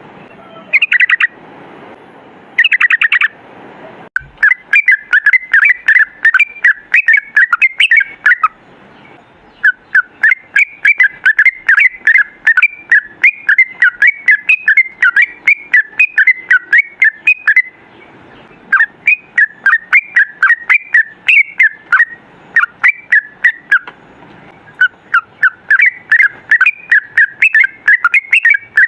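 Yellow-vented bulbul (trucukan) singing in fast runs of short, warbling notes. Two brief bursts come first, then long runs of several seconds each with short pauses between them.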